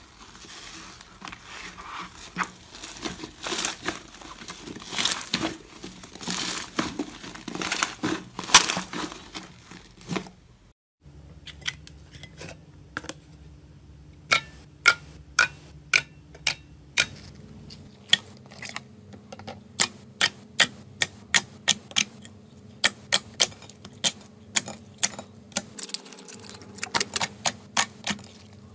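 Slime being squeezed and worked by hand: dense crackling and crinkling at first, then, after a brief break about a third of the way in, sharp separate pops about one or two a second.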